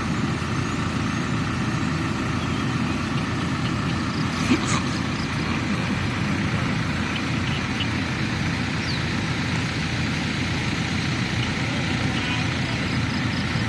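A truck engine running steadily, with one short knock about four and a half seconds in.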